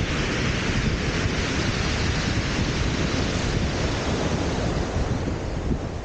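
Wind buffeting the microphone with a heavy, steady rumble, over the hiss of surf washing on a shingle beach.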